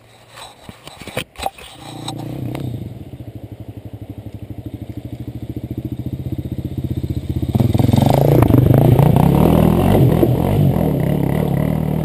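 A few clicks and knocks, then a dirt bike engine starts about two seconds in and idles with an even pulse. About seven and a half seconds in it revs up and runs louder.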